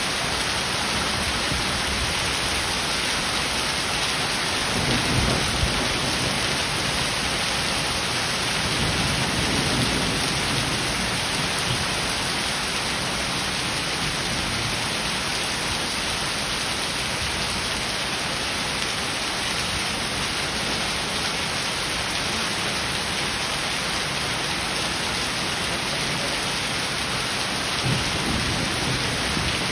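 Heavy rain mixed with hailstones falling on paving and plants, a dense steady hiss. A few brief low rumbles swell up, about five seconds in, around ten seconds and near the end.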